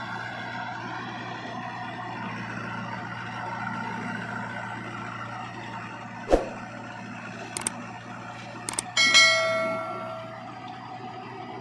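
Diesel engines of a tractor and a JCB 3DX backhoe loader running steadily. Sharp metal clanks come about six and seven and a half seconds in. At about nine seconds comes a loud metallic clang, the loudest sound, which rings on for about a second and a half like struck steel.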